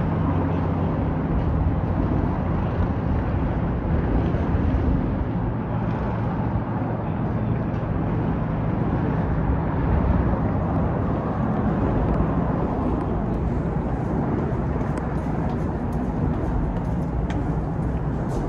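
Steady low rumble of vehicle traffic, with an engine hum that fades after the first couple of seconds.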